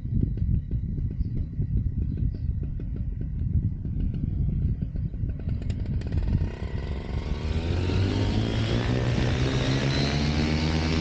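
Wind buffeting the microphone with a low, gusty rumble, then a paramotor's Vivid Atom 80 two-stroke engine spinning up: its pitch rises steadily over a few seconds and levels off near the end.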